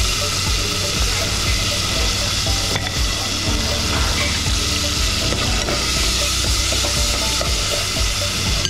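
Sliced garlic and onion sizzling steadily in hot oil in an aluminium pot.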